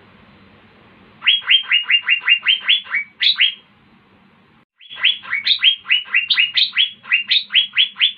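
Asian fairy-bluebird (cucak biru) singing: two quick runs of sharp, downward-sweeping notes, about five or six a second, the first starting about a second in and the second shortly after the middle.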